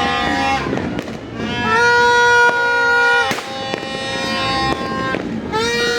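Music with long held notes that slide into pitch, with firework bangs about a second in and again past the three-second mark.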